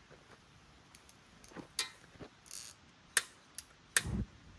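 Propane fire pit being lit: several sharp clicks of its igniter, a brief hiss, then a short low rumble after the last click near the end as the gas catches.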